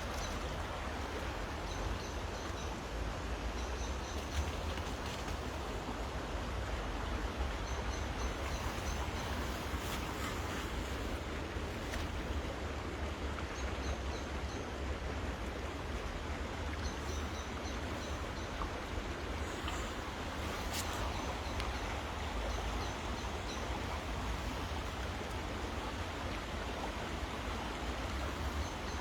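Steady rushing of river water and rain, with a low rumble underneath and faint short bird chirps every few seconds.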